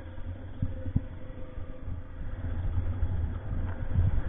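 Motorcycle engine running as the bike rides slowly, a low uneven rumble that grows louder toward the end.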